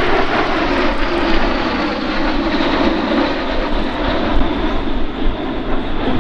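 Aero L-39 Albatros jets in flight, a loud, steady rush of jet engine noise.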